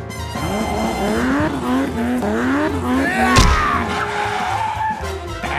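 Sound-effect engine revving up and down in wavering glides with tyres skidding, dubbed over a toy monster truck driving on sand, with a sharp knock about three and a half seconds in.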